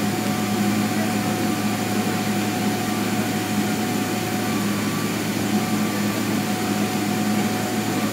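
Steady cabin drone inside a Boeing 777-300ER taxiing, its GE90 engines at idle and the air conditioning running: a low hum with a few steady whining tones over an even rush of air.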